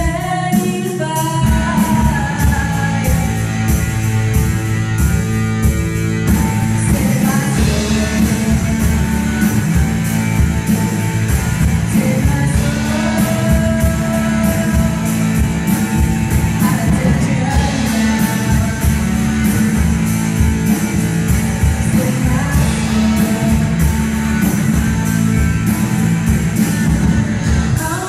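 Live rock band playing: a singer over electric guitar, bass guitar and a drum kit, with a steady driving beat.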